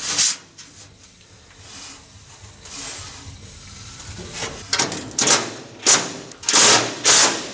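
Power drill driving self-tapping tech screws into sheet metal, in several short bursts from about halfway in, one held a little longer.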